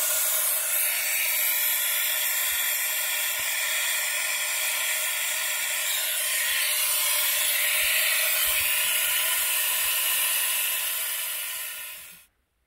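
Compressed air hissing steadily through a venturi coolant vacuum-fill tool as it pulls a vacuum on the car's cooling system before refilling. The hiss stops abruptly near the end.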